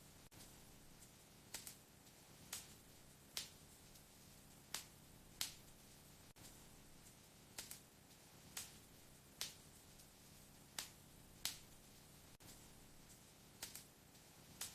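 Wood fire crackling in a fireplace: sharp pops of burning wood about once a second, sometimes in quick pairs, over a faint steady hiss.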